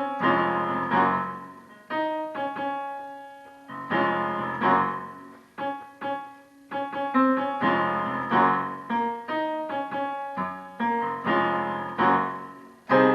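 Piano playing a gospel chord progression in D-flat, slash chords such as D-flat over F and G-flat struck one after another about every one to two seconds and left to ring and fade.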